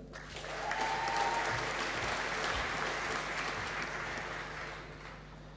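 Audience applauding, swelling within the first second and gradually fading away toward the end.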